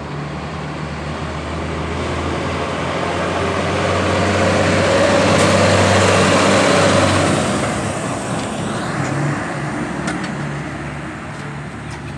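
Volkswagen log truck with a loaded trailer driving past close by: diesel engine and tyre noise build up, are loudest about six seconds in, then fade as it moves away.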